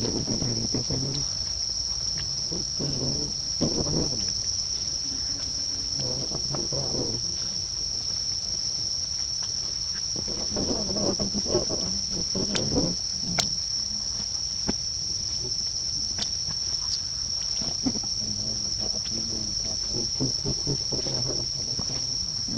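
Steady high-pitched drone of insects, with softer low sounds coming and going underneath and a few faint clicks.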